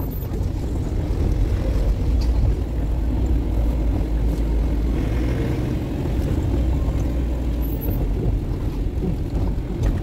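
Engine and road noise of a passenger safari vehicle on the move: a steady low rumble.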